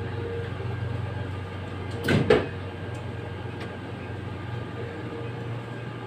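A steady low machine hum with a single short, sharp clatter about two seconds in.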